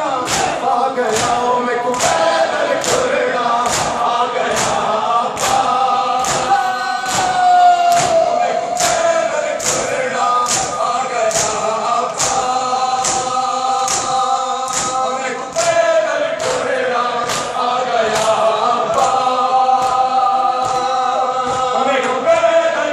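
Large crowd of men chanting a Shia nauha (mourning elegy) in unison, with the rhythmic slaps of hands striking chests in matam, a little more than one beat a second, echoing in a large hall.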